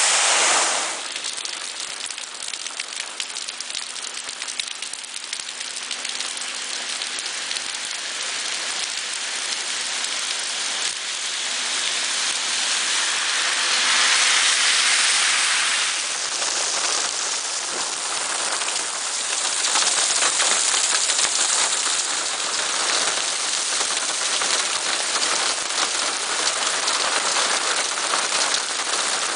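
Torrential thunderstorm rain pouring down, a dense steady hiss that swells louder at times.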